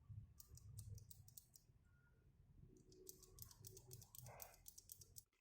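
Faint, quick clicks and taps of small plastic keyboard accessories being handled, in two runs, the second starting about three seconds in.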